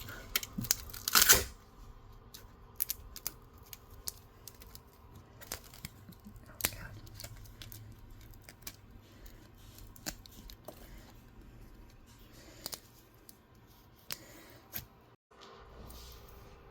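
Freshly 3D-printed plastic printer feet being handled: a short tearing, scraping sound about a second in, then scattered light plastic clicks and taps.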